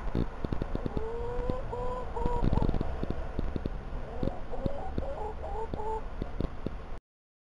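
Hens giving a run of short, level-pitched clucking calls while feeding, over many quick sharp taps of beaks pecking at the ground close by. The sound cuts out abruptly near the end.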